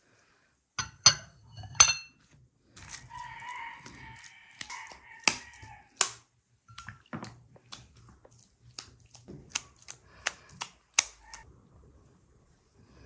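A rooster crows once, a held call of about two seconds starting roughly three seconds in. It is surrounded by scattered sharp clicks and knocks of utensils and dishes.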